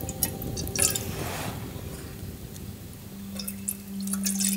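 Water poured from a metal flask into a metal camping cook pot, splashing and trickling as it fills, with scattered small clicks. A low steady tone comes in about three seconds in.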